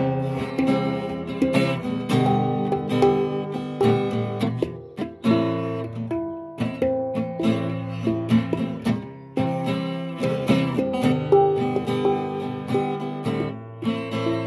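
Music: a guitar picking slow arpeggiated chords, the instrumental intro of a rock ballad before the singing begins.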